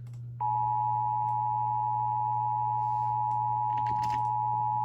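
Emergency Alert System attention signal: a steady two-note electronic tone starts about half a second in and holds unbroken, over a constant low hum. It marks the start of an EAS alert, here a required monthly test.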